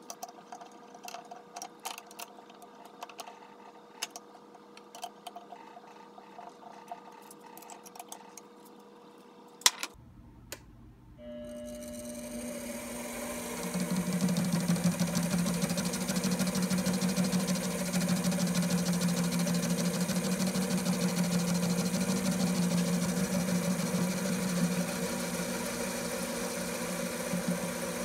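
Scattered small clicks and knocks of the work being set in the four-jaw chuck, then about eleven seconds in a Grizzly G0765 7x14 mini lathe starts up. It runs steadily with a motor-and-gear whine, growing louder a couple of seconds later as the chuck spins square aluminium stock for a facing cut.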